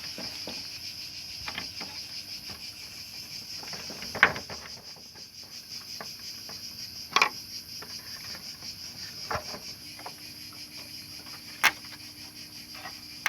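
Crickets chirring steadily, with three sharp clicks or knocks spread through as plastic parts of a split air conditioner's indoor unit are fitted back together.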